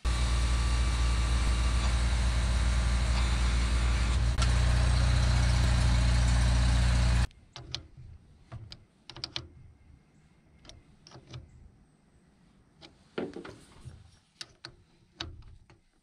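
A loud, steady motor runs for about seven seconds, a little louder after a click about four seconds in, then cuts off abruptly. Light clicks and knocks follow.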